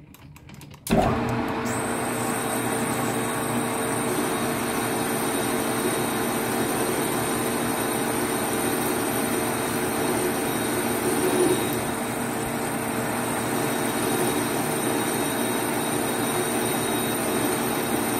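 Metal lathe starting up about a second in and then running steadily, a constant hum with a high whine over it, as its four-jaw chuck spins and the tool cuts an aluminum workpiece.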